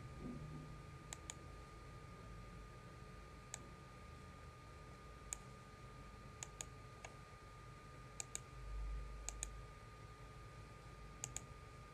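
Faint computer-mouse button clicks, about a dozen at irregular intervals, several in quick pairs, as keys on an on-screen keyboard are clicked. A thin steady hum runs underneath.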